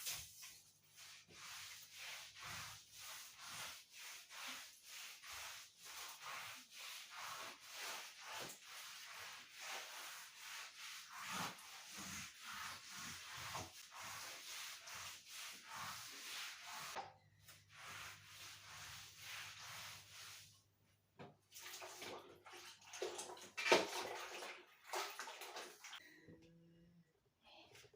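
A scrub brush scrubbing a wet floor in rhythmic back-and-forth strokes. The strokes stop about two-thirds of the way through and give way to a few scattered scrapes, with one louder knock near the end.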